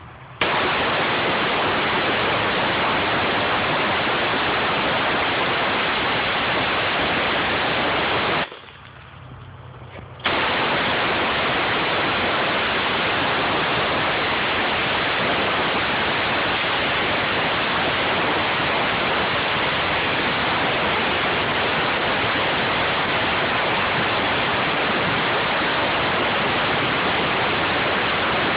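Air spade blasting a jet of compressed air into the soil and mulch at a tree's base, blowing the soil away to expose a buried root collar. It makes a loud, steady hiss that starts just after the beginning, cuts out for about two seconds around eight seconds in, then starts again.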